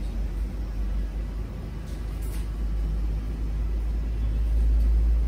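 A steady low rumble with no clear tone, growing louder near the end.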